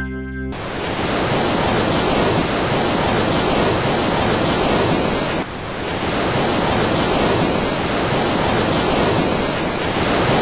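A loud, even rushing hiss, a noise sound effect laid on the soundtrack. It cuts in sharply about half a second in and starts over abruptly about five and a half seconds in.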